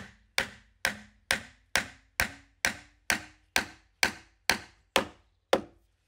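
Large wooden mallet driving an oak peg into an oak timber-frame joint: thirteen even knocks about two a second, each with a short ring that climbs in pitch from knock to knock as the peg goes home. The knocks stop about half a second before the end.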